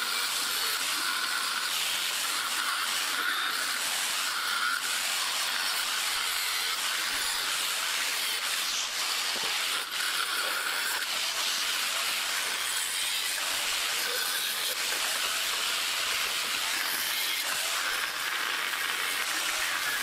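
Angle grinder with a cutting disc running steadily, slicing through metal bicycle frame and rack tubes, with a short dip about ten seconds in as the disc comes out of the cut.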